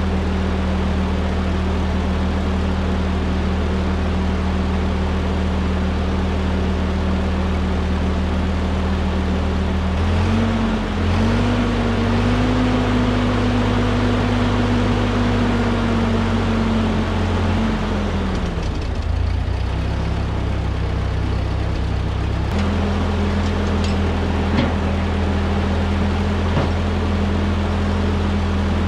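1946 Ford 2N tractor's four-cylinder flathead engine running after a head gasket replacement, burning off antifreeze left in the cylinders. It idles steadily, is revved up about ten seconds in and held there for several seconds, then drops back to idle, and picks up a little again a few seconds later.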